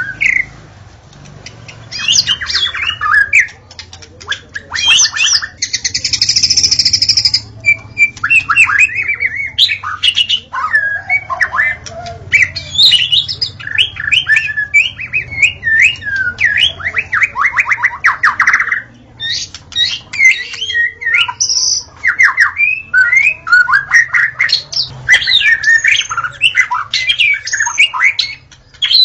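White-rumped shama (murai batu) singing a long, varied song of whistled phrases, fast trills and harsh notes, with only brief pauses between them.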